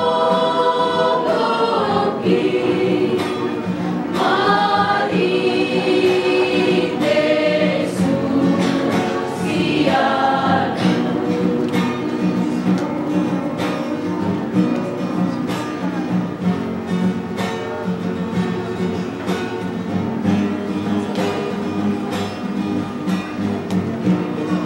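Women's vocal group singing a Simalungun hymn in harmony, with a strummed guitar accompanying. The voices are strongest in the first half, then settle into longer held chords.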